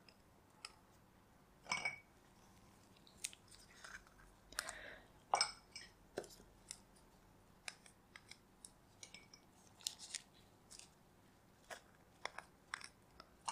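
Faint scattered clicks, taps and short rustles of paint cups and painting supplies being handled and set down, irregular and a few seconds apart.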